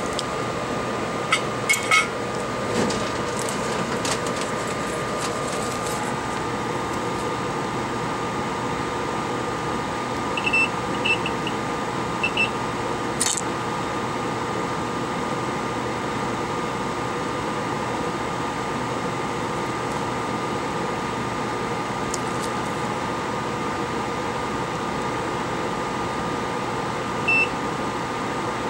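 Steady fan-like hum of electric bench equipment with a constant whine. A few light clicks come near the start and once midway, and short high beeps sound several times between about ten and twelve seconds in and once near the end.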